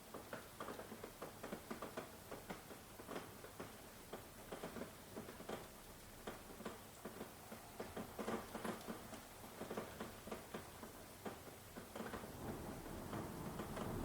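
Steady rain with many irregular drops pattering and ticking close by. A low rumble builds near the end.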